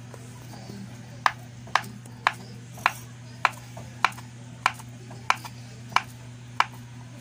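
Kitchen knife slicing a banana into rounds on a plastic cutting board: about ten sharp taps of the blade striking the board, one every half second or so.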